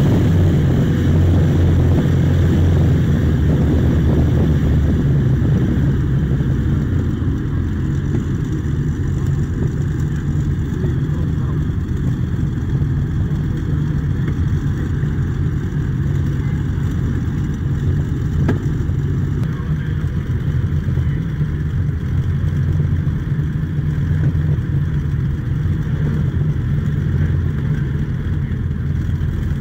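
Large inboard engine of a mahogany speedboat idling at the dock with a loud, steady, low drone, a little louder in the first few seconds.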